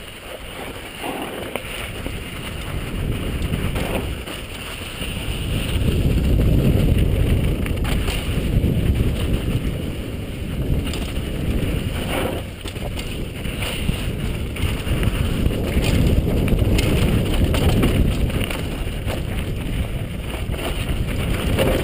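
Wind rushing over a helmet-mounted camera's microphone together with mountain bike tyres rumbling and rattling over a dusty, rocky downhill trail, rising and falling with speed. A few knocks from bumps, the plainest about twelve seconds in.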